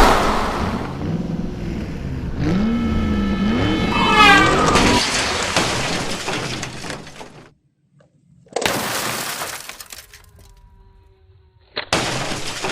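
Crash and shattering sound effects: a loud hit at the start followed by breaking noise that fades out, then, after a short silence, two more sudden shattering crashes about 8.5 and 12 seconds in, each dying away.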